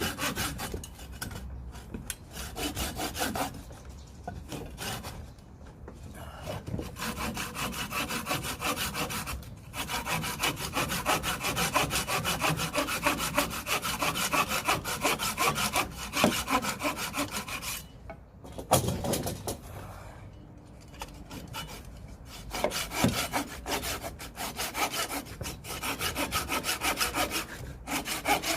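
A saw cutting through firewood in a steady run of rapid strokes, pausing briefly a few times.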